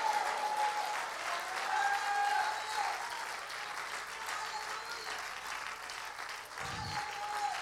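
Congregation applauding, the clapping slowly dying away over several seconds.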